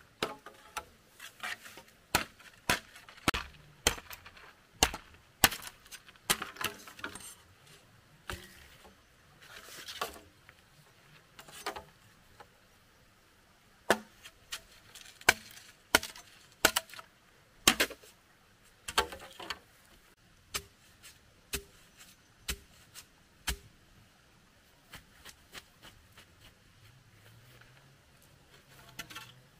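Wood being chopped: a series of sharp, irregular strikes with short pauses between bursts, growing softer and sparser in the last third.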